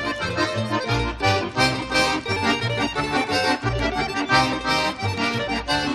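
Bouncy accordion tune with a steady oom-pah bass beat, cartoon background music.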